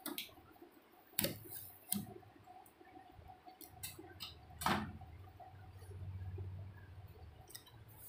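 A few sharp clicks and taps from handling a new microwave oven's casing. About five seconds in comes a louder click as the door latch is released and the door pulled open, under a low hum lasting a few seconds.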